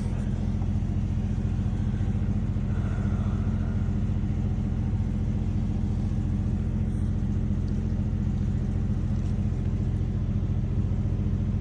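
A machine's engine running steadily at idle, a constant low hum with no change in speed.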